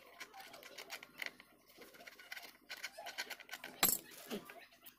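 Light clicks, ticks and rustling from small motorcycle parts and a hand tool being handled, with one sharper click about four seconds in.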